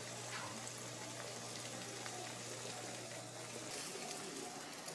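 Vegetable omelet of duck eggs frying in a nonstick pan, a steady gentle sizzle.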